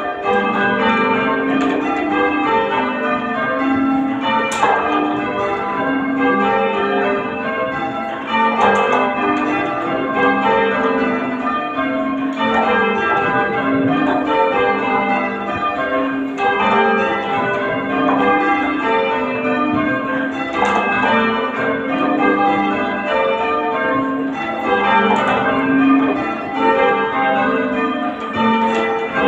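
Church tower bells being change-rung, struck one after another in a steady, continuous rhythm with their tones overlapping and ringing on.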